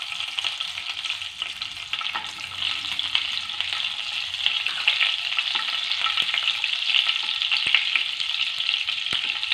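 Butter melting in hot frying oil in a pan, sizzling steadily with scattered small pops and crackles.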